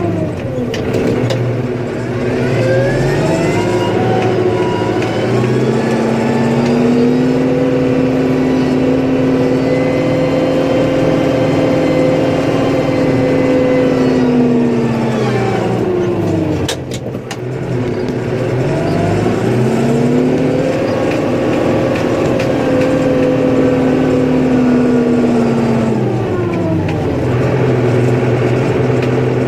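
Snowplow vehicle's engine revving up, holding high for several seconds and dropping back to idle, twice over, as it pushes snow. A few sharp knocks come about midway, between the two pushes.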